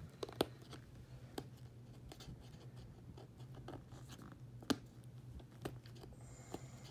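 Fingers scratching and picking at a tab on a cardboard toy box, with scattered small clicks and taps; the sharpest taps come about half a second in and again near five seconds. A faint steady low hum runs underneath.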